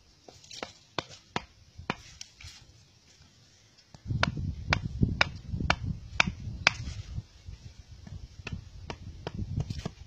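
Machete chopping at a small wooden stick: a few light taps, then from about four seconds in sharp strikes about two a second, over a low rumble.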